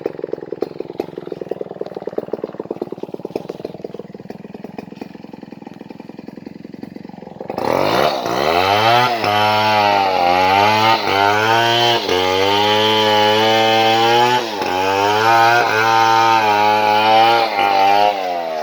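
Chainsaw idling with a fast, even pulse, then revved up suddenly at about seven and a half seconds and held at high speed. The engine speed dips and recovers several times, then drops back toward idle near the end.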